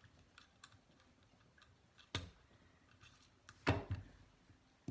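Light clicks and taps of a small screwdriver and small metal parts being handled on a Remington Mohawk 48 shotgun's action while a hole is lined up to push in a pin. A sharper click comes about two seconds in and a louder knock a little before the end.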